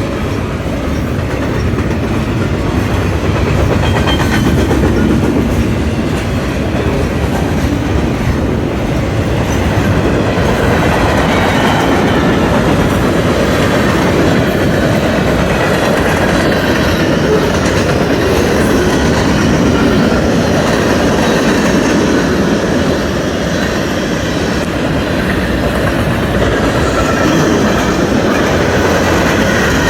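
A train rolling past close by: a steady, loud rumble and clatter of wheels on the rails.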